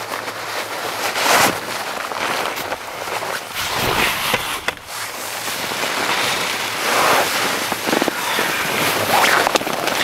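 Sleeping bag and its nylon stuff sack rustling and crinkling as they are handled and packed, then a closed-cell egg-crate foam sleeping pad being folded near the end; an uneven crackle of handled fabric and foam that swells and fades.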